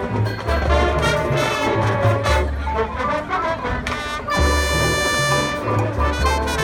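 Marching band playing, its brass section over a pulsing low bass line, settling into a long held brass chord a little after halfway.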